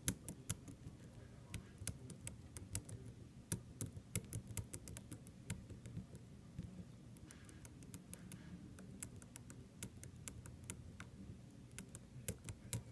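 Metal lock pick clicking and ticking against the pins inside a Medeco Biaxial cylinder lock: small, irregular clicks, several a second. The picker is working pin 5, the last pin still needing to be rotated into place.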